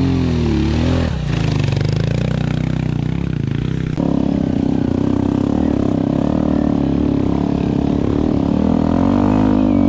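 A dirt bike engine revving up and down as it climbs past close by; about four seconds in, a sudden cut to a Yamaha WR155R's single-cylinder four-stroke engine running steadily under the rider on a dirt trail, its pitch wavering slightly near the end.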